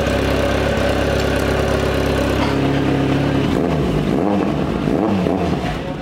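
Kawasaki Z900's inline-four engine idling steadily, then revved up and down from about three and a half seconds in.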